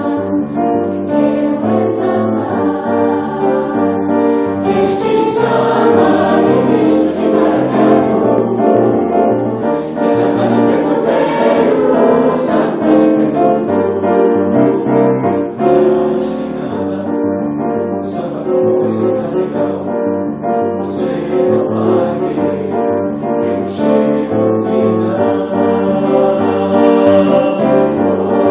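Choral music: a choir of many voices singing.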